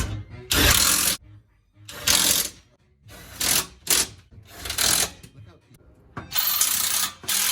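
Pneumatic hand tool run in short bursts, about seven hissing pulls of a quarter to one second each, the kind used to run fasteners home while fitting exhaust parts.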